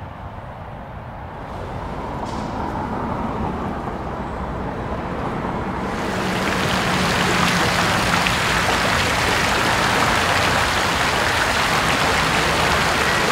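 Outdoor city ambience: a low traffic rumble that swells over the first few seconds, then, about six seconds in, a sudden step up to a loud, even wash of noise that holds steady.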